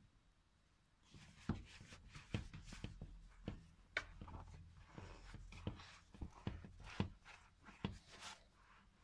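Hands kneading and punching down risen yeast dough in a plastic bowl: faint, irregular soft thumps and knocks, several a second, starting about a second in.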